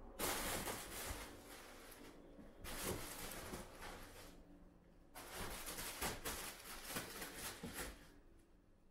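Fabric cat play tunnel rustling as Bengal kittens climb on it and scramble inside it, in three long bursts with short pauses between.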